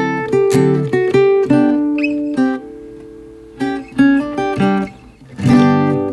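Background music on acoustic guitar: plucked notes and chords, with a last strummed chord near the end that is cut off short.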